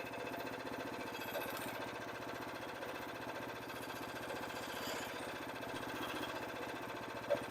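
Small engine of a portable band sawmill idling steadily, with an even, fast pulsing.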